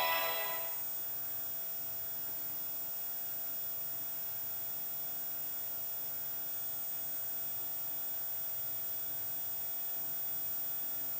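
Steady hum and hiss of a VHS tape playing with no programme sound, after the last of a piece of music fades out about half a second in.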